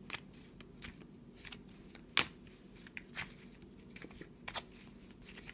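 A tarot deck being shuffled by hand: soft, irregular slaps and flicks of cards. The sharpest slap comes about two seconds in.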